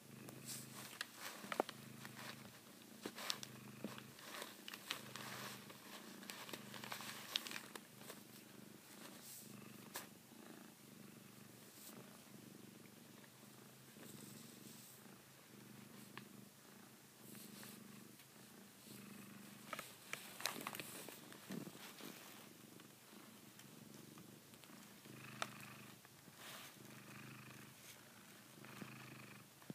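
Savannah cat purring steadily, the purr pulsing in and out with each breath, with scattered soft rustles and crackles as it bites and works the blanket.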